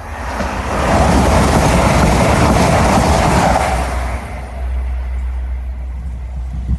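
TransPennine Express Class 802 train passing at speed: a rush of wheel and air noise that swells over the first second, holds, and fades away after about four seconds, leaving a low rumble.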